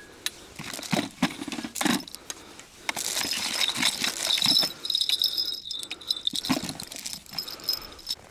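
Fishing gear being handled: plastic tackle boxes and small items clicking and rattling in a plastic bucket, with a thin high squeak in the middle.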